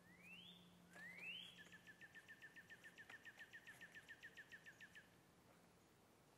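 A songbird singing faintly: two rising whistles about a second apart, then a fast, even trill of about seven notes a second that stops about five seconds in.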